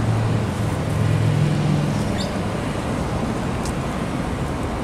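Steady road traffic noise, with the low hum of a passing vehicle's engine that fades away about two seconds in.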